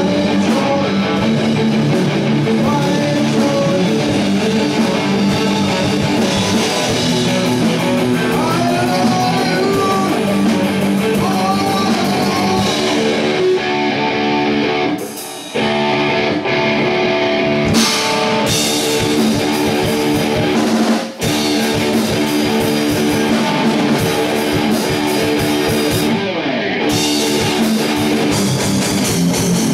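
Rock band playing live: two electric guitars through amplifiers and a drum kit, with no bass guitar. The playing breaks off for a moment twice, about halfway through and again a few seconds later.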